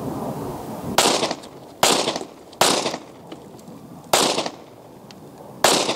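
Five pistol shots from a ported .40 S&W Glock 22C. The first three come about a second apart, then after a short pause two more, each a sharp crack with a brief echo.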